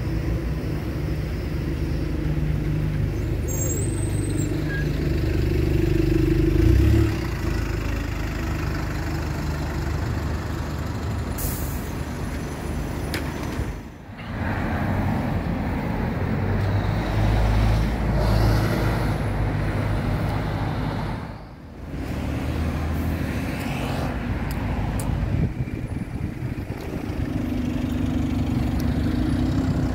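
ADL Enviro200 single-deck diesel buses running at a kerbside stop and pulling along the road, engines humming low and steady, with a short hiss of air about a third of the way in. The sound drops out briefly twice, where the footage is cut.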